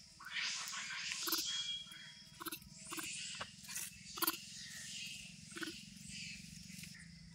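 Rhesus macaques giving harsh, noisy calls, with about six short grunts scattered through them.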